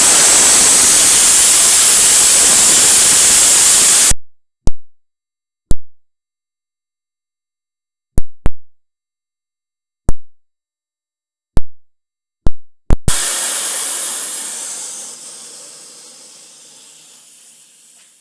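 High-pressure air being vented from a 300-bar compressor's receiver and lines as the system is emptied and purged. A loud, steady hiss cuts off abruptly after about four seconds. About nine short, sharp blasts follow, and a final hiss fades away over several seconds as the pressure runs down.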